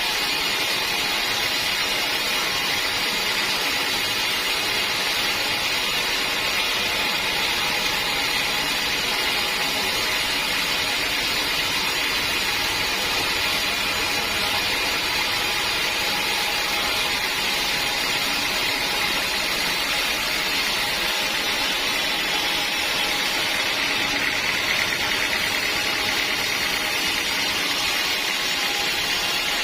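Sawmill running steadily, a constant machine noise with a hissing upper edge and no change in pace.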